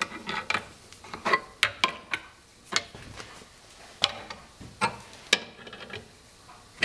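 Wrench clicking and clinking on the steel hold-down clamp nuts of a drill-press V-block fixture as the nuts are snugged down, in a string of irregular sharp metallic clicks.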